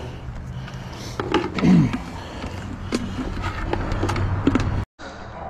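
Scattered clicks and knocks of a plastic bait container being handled over a bucket, then footsteps on dry dirt, over a steady low hum of traffic on the bridge overhead.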